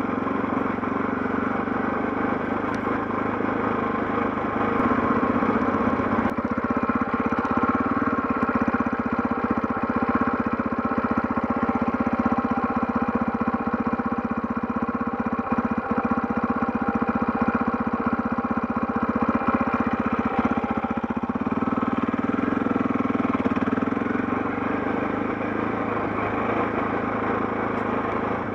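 KTM 640 Adventure's single-cylinder engine running as the motorcycle rides through rutted snow. The engine note turns rough and uneven from about six seconds in until about twenty-one seconds, then steadies again.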